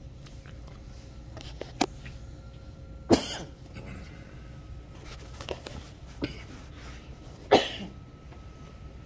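A person coughing twice, once about three seconds in and again about four seconds later, with a sharp click shortly before the first cough and a couple of faint ticks between.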